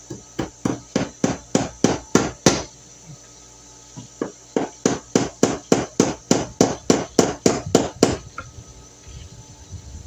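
Hammer blows, about three a second, driving a screwdriver used as a chisel into a wooden stud to cut a notch for a cable. There is a run of about eight blows, a short pause, then a run of about fourteen, ending in a few faint taps.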